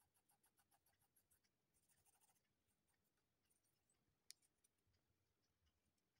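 Near silence with faint, quick scratchy ticks, about seven a second, for the first second and a half. A short scratch comes about two seconds in, and one sharp click a little after four seconds.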